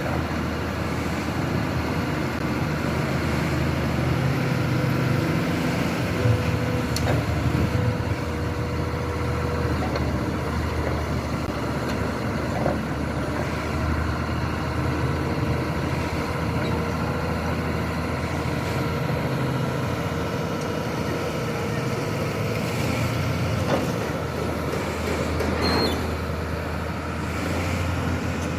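Diesel engine of a Komatsu excavator running at a steady speed, with a few faint knocks over it.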